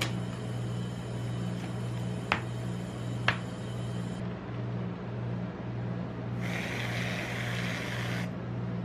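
Steady low hum of an ice-cream roll machine's freezer under its steel cold plate, with two sharp taps on the plate a second apart. About six and a half seconds in, whipped cream hisses out of an aerosol can for about two seconds.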